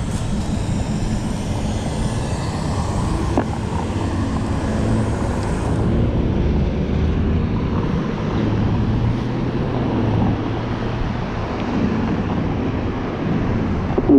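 Road traffic at a multi-lane intersection: cars and a pickup truck driving past, a steady rumble of engines and tyres.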